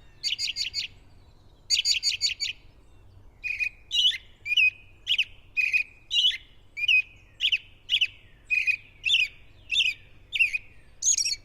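American robin singing: a long run of short, whistled phrases, about two a second, with quick clusters of high, thin notes near the start and again near the end.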